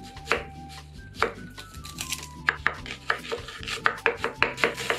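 Kitchen knife cutting through an onion onto a wooden cutting board. Two single cuts come first, then a run of quick, even chops from about halfway through. Soft background music plays underneath.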